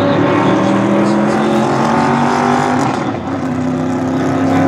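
Race car engines running on the speedway: a loud, steady engine drone made of several pitches, which drops briefly about three seconds in and then comes back.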